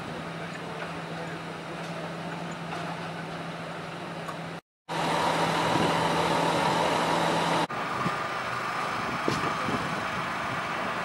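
Steady low hum of an engine running, under outdoor background noise. The sound drops out for a moment about four and a half seconds in, comes back louder, and changes abruptly near eight seconds.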